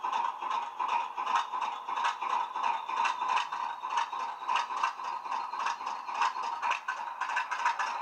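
Hornby HM7000 sound decoder playing a recorded Class 20 diesel's English Electric 8SVT engine idling through the model's small speaker: a steady, rhythmic engine clatter, thin and with no bass.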